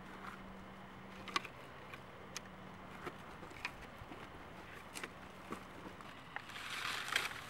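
Dry cornstalks and leaves crackling and snapping as someone pushes through them on foot, with scattered sharp snaps and a louder rustling near the end.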